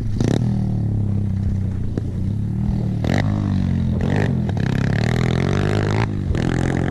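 Dirt bike engine running and revving, its pitch rising and falling as it is ridden down a steep gravel slope. Several short bursts of rushing noise sound over it.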